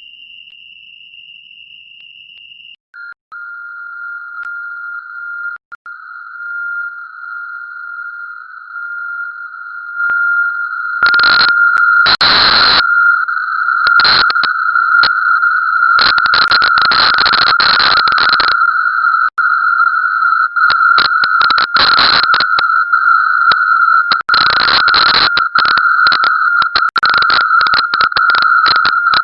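Steady electronic sine tone from the CwGet Morse-code program's audio output. About three seconds in it drops to a lower pitch and slowly grows louder. From about eleven seconds in it is broken by harsh crackling bursts that stutter faster toward the end, which the uploader takes for an audio loop feeding back on itself.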